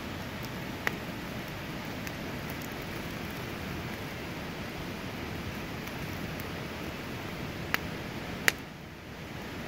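Wood campfire burning with a steady hiss and a few sharp crackling pops: one about a second in and two louder ones near the end.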